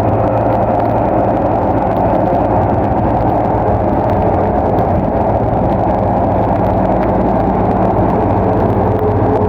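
Bulldozer's diesel engine running steadily, with a constant low hum and no change in pitch.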